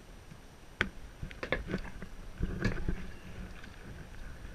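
Kayak paddling: a few short, sharp paddle sounds in the water and against the boat, about a second in and again between two and three seconds in, over a low rumble.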